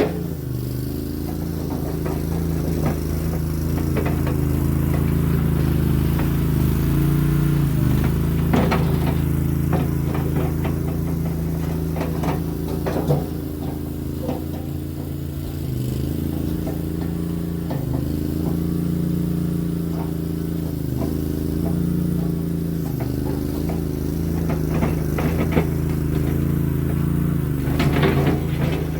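Mini skid steer engine running steadily, its pitch dipping and recovering as the machine works under changing load, with scattered metal clanks and knocks from the machine as it works.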